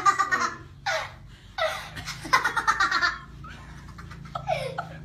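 People laughing in several bursts, loudest in the first three seconds, over a faint steady low hum.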